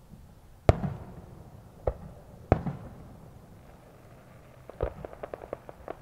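Aerial firework shells bursting: three sharp bangs, each with an echoing tail, in the first three seconds. Near the end comes a quick string of small crackling pops.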